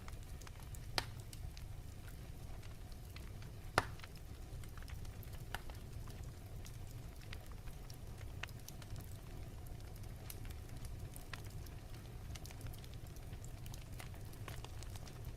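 Crackling fireplace fire: a steady low rumble with scattered sharp pops, two louder ones about one and four seconds in.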